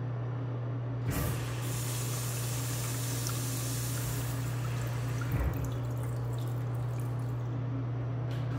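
American Standard Washbrook urinal being flushed by its flush valve. A thump about a second in as the water comes on, then rushing flush water for about six seconds, with a second low thump about five seconds in, tapering off near the end.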